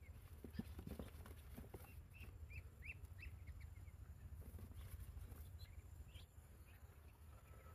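Young poultry chicks peeping faintly as they are tipped from a cardboard box into a bamboo basket: a short run of high peeps about two to three seconds in, with a few soft knocks of handling near the start.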